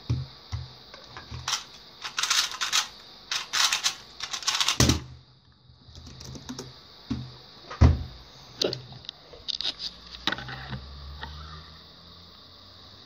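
MoFang JiaoShi MF2S 2x2 speedcube clattering in fast turns for about three seconds, ending in a hard thump as the solve is stopped on the speed timer. A second thump a few seconds later, then scattered light knocks and taps of handling.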